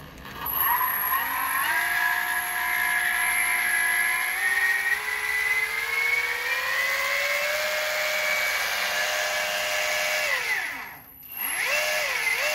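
Two Turnigy SK3 brushless outrunner motors driving a friction roller against a scooter's rear tire, spinning the wheel in the air: an electric whine that climbs steadily in pitch as it speeds up, then holds. About ten seconds in it winds down and stops, then spins up again near the end.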